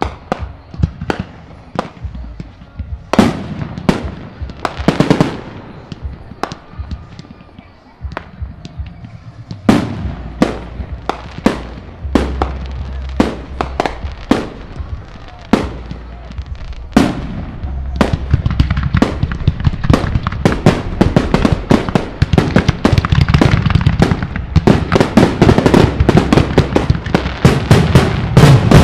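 Aerial fireworks display: shells bursting with sharp bangs and crackle, scattered at first, then building about two-thirds of the way in to a dense barrage of rapid bangs over a continuous low rumble. This is typical of a show's finale.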